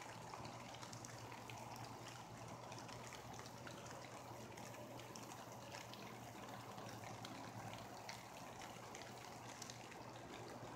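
Light rain falling on broad leaves: a soft steady hiss with many small scattered drop ticks, over a faint low hum.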